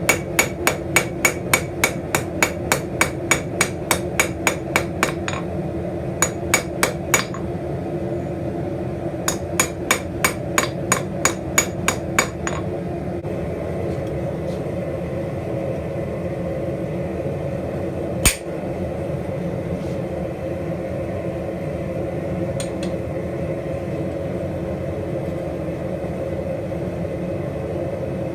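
Blacksmith's hammer striking on an anvil in quick runs of about three blows a second, in three bursts with short pauses, then a single sharp blow later on. A steady hum runs underneath.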